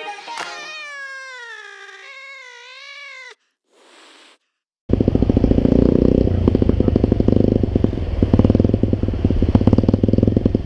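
A drawn-out meow that falls and then wobbles in pitch, lasting about three seconds, followed by a short silence. About five seconds in, a small motorcycle engine cuts in abruptly and runs loud, with rapid, even firing pulses.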